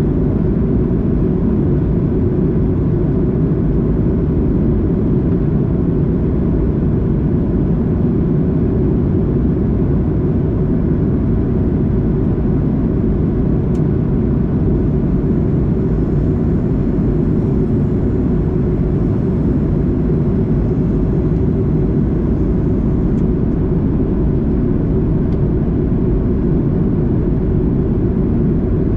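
Steady cabin roar of a Boeing 737-800 airliner in flight: engine and airflow noise, deep and unchanging, with a couple of faint clicks in the middle.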